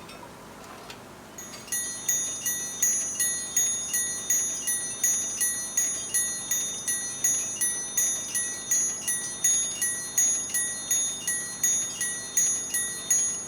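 Cuckoo clock's small bell ringing like a school bell. One steady-pitched bell is struck quickly and evenly, about three times a second, starting a second or two in and stopping near the end.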